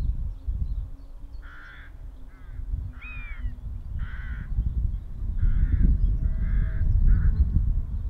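Crows cawing: a series of about eight short, harsh caws, spaced irregularly from about a second and a half in, over a steady low rumble.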